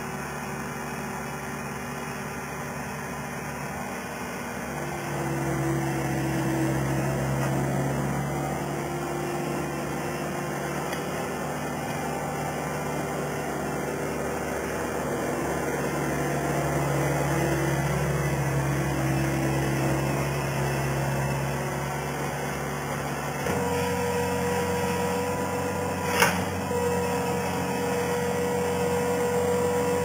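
Skid steer loader's engine running at steady revs while the fork grapple handles logs and brush. The hum grows louder about five seconds in and changes tone abruptly a little past two-thirds through, with one sharp click near the end.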